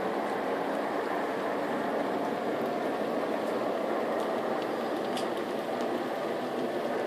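Steady rushing outdoor background noise, with a few faint clicks about five seconds in.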